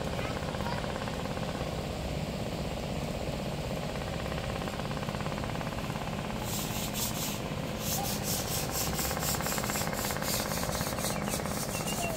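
A steady rubbing, scratchy noise, joined about halfway through by a quick, regular crackle.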